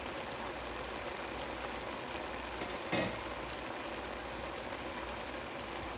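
Diced chayote and shrimp simmering in their juices in a ceramic nonstick pan: a steady crackling, bubbling hiss, with a short thump about three seconds in.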